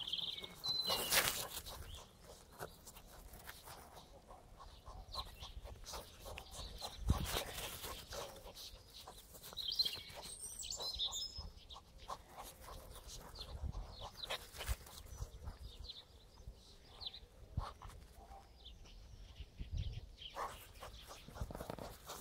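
Quiet outdoor ambience: birds chirping a few times in the background, near the start and again about ten seconds in, with scattered soft knocks and rustles close by.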